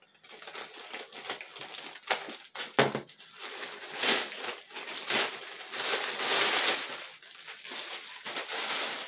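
Plastic bag crinkling and rustling as a plush toy is unwrapped by hand, in irregular bursts with a couple of sharp crackles a few seconds in.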